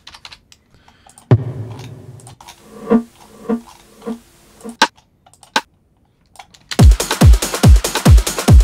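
Faint mouse clicks and short rim-shot drum samples played one at a time, several in a row. About two seconds before the end a techno drum loop starts: a kick drum about twice a second under dense, busy high percussion.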